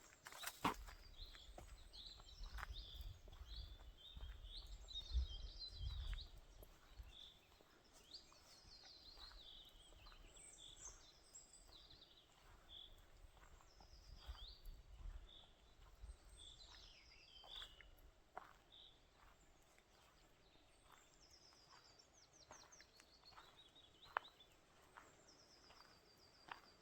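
Faint songbirds singing in the forest, with many short phrases from several birds, some of them quick trills that fall in pitch. A low wind rumble sits under the first half and eases off later, and faint clicks are scattered throughout.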